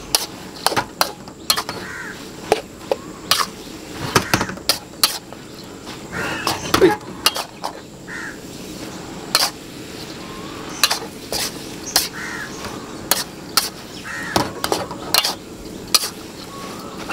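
Metal spatula knocking and scraping against a wok in quick irregular strokes as rice vermicelli is stir-fried, with short bird calls in the background.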